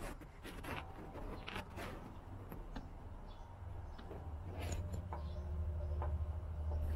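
Trek Domane carbon fork and frame being handled as the fork's steerer is fitted into the head tube: scattered light clicks and knocks over a low rumble of handling noise that grows louder near the end.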